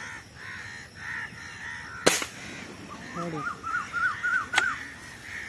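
Crows cawing over and over, with a quick run of short rising-and-falling calls in the second half. A single sharp crack sounds about two seconds in, and a shorter click comes near the end.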